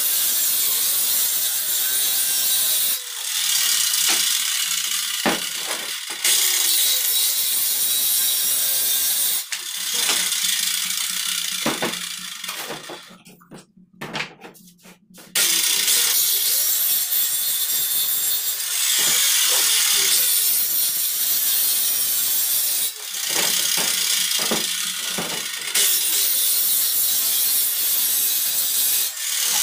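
Handheld electric circular saw cutting wooden boards, one cut after another with short changes between them. About halfway through the saw winds down and stops for a moment, then starts again and carries on cutting.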